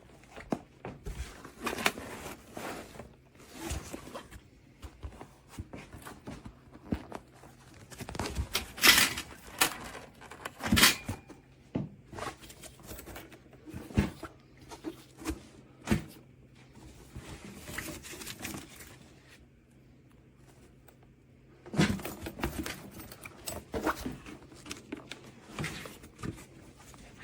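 Irregular knocks, clicks and rustling: handling noises around a mesh bird carrier, with louder clusters of knocks in the middle and again near the end.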